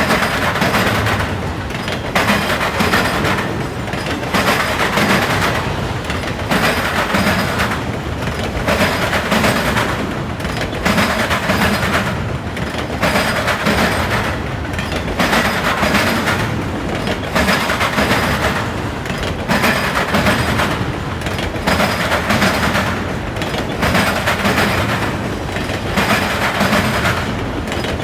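Wheels of a CSX autorack freight train banging over a railroad diamond crossing: a steady run of heavy clacks, coming in groups about every two seconds as each car's wheel sets pass.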